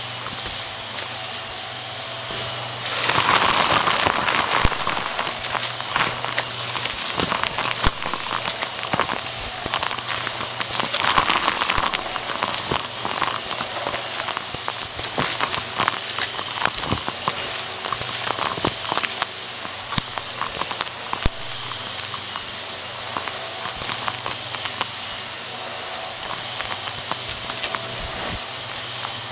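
Hart stick vacuum running over carpet, its motor humming steadily while sucked-up debris crunches and crackles through it. The crunching gets louder about three seconds in and again around eleven seconds in.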